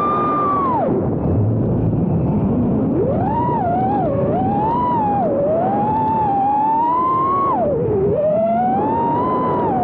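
5-inch FPV racing quadcopter's brushless motors and propellers whining over a rushing noise, the pitch rising and falling with throttle. The whine drops sharply about a second in and again near eight seconds, then climbs back.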